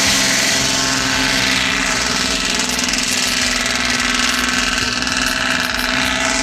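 Kenworth truck's Detroit Diesel V-71 two-stroke diesel engine running steadily.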